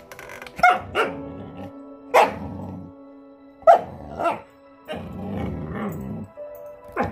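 Lycan Shepherd puppies "talking" back in a dispute over a chew horn: about half a dozen short barks with growling between, a protesting no rather than a fight.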